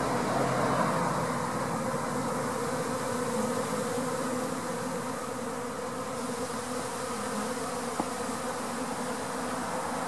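A honey bee swarm buzzing steadily around a top bar hive, the hum of many wings as the swarm moves in. A single brief click about eight seconds in.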